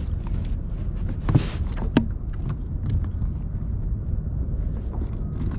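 Steady low rumble of wind and water on the microphone aboard a fishing kayak, with scattered small knocks and clicks and a brief hiss about a second and a half in.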